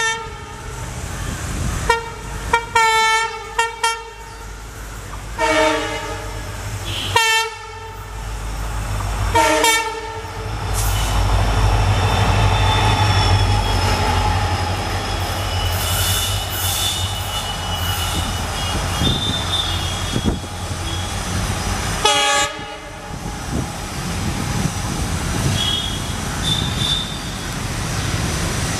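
EMD WDG4 diesel locomotive sounding its twin-tone horn in a quick series of short blasts, then several longer ones over the first ten seconds, then running past with a heavy rumble of engine and wheels. A faint high wheel squeal comes and goes during the pass, and one more horn blast sounds about two-thirds of the way through.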